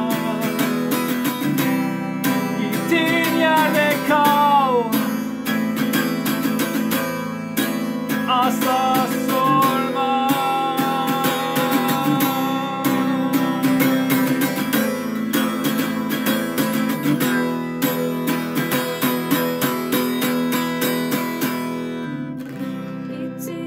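Acoustic guitar strummed in a steady rhythm with a melody line over it that slides down in pitch in the first few seconds; the music fades out near the end.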